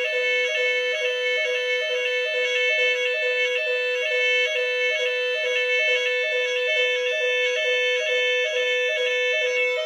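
Electronic fire alarm sounder going off during a test: a loud, steady, buzzy tone that warbles in a regular repeating cycle, about two pulses a second.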